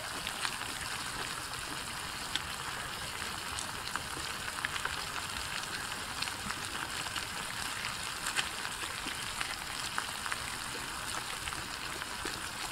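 A spicy stir-fry of razor clams and vegetables sizzling in a stainless steel pot still over the flame: a steady hiss with scattered small pops and crackles.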